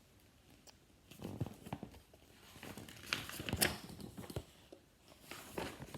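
Paper rustling and crinkling as a picture book's pages are handled and turned, in several short rustles.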